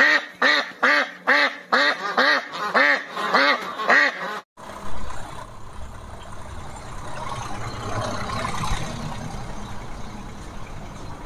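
A duck quacking in a quick regular series, about nine quacks at roughly two a second, which stops abruptly about four and a half seconds in. A steady, even background noise follows.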